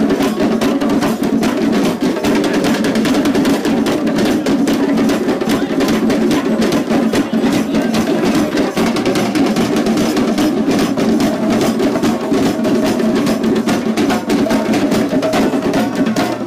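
A drum circle of many djembes and other hand drums playing together in a dense, driving rhythm, with strokes packed close and no let-up.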